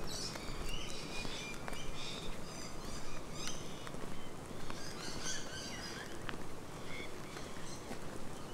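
Several birds chirping and trilling over one another in eucalypt bushland, with the walker's footsteps on a dirt track.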